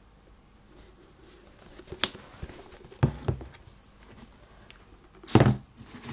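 Handling knocks as football boots are set down on and against a cardboard shoebox: a sharp tap about two seconds in, two low knocks about a second later, and a louder, heavier thump near the end, with light rustling between.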